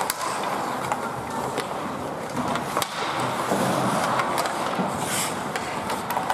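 Ice hockey skates scraping on rink ice, with scattered sharp clicks of sticks striking the puck and the ice.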